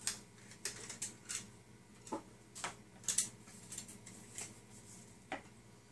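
Nested camping cook kit being handled: a string of irregular clicks and knocks as the metal pot and its parts come out of the bag and are set down on the table.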